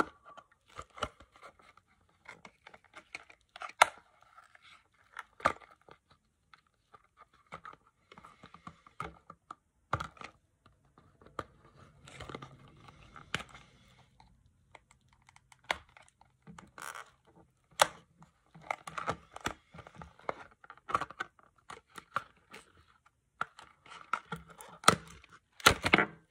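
Fishing jig's packaging being torn and pried open by hand: irregular crackles, scrapes and clicks, busiest and loudest near the end.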